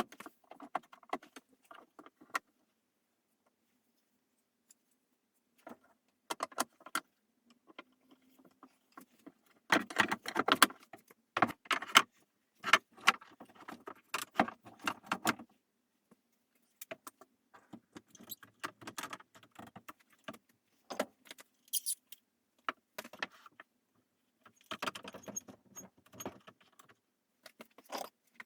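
Workshop handling sounds: irregular clinks and rattles of small metal parts on a bench, coming in clusters with short pauses between.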